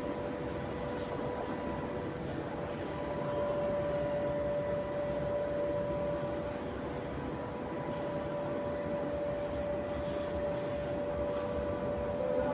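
A motor running steadily with a constant hum over a steady rushing noise; the hum shifts slightly higher in pitch about three seconds in.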